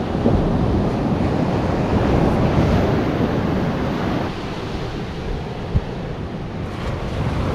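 Surf breaking and washing up a sandy beach, with wind buffeting the microphone. One short knock stands out late on.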